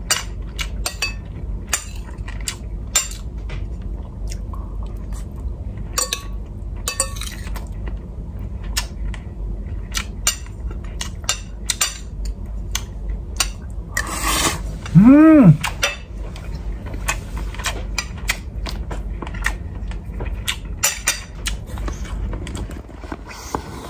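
Metal spoon and fork clinking and scraping on ceramic plates during a meal of rice and sautéed bottle gourd, with chewing. About fourteen seconds in comes a loud short rush of noise, then a brief voice sound that rises and falls in pitch.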